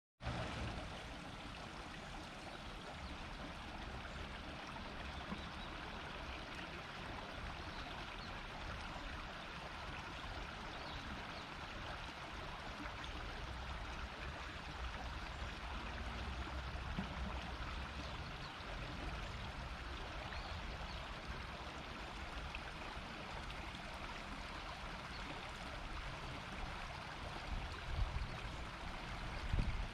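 A river murmuring steadily as shallow water runs over stones. A few low bumps come in near the end.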